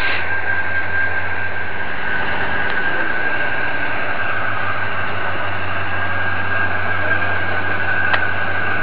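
Crane's diesel engine and hydraulics running steadily: a low hum under a constant high whine.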